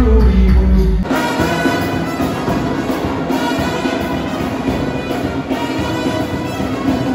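Music with a heavy bass through a sound system, cutting about a second in to a live brass band playing, with sousaphones and trumpets.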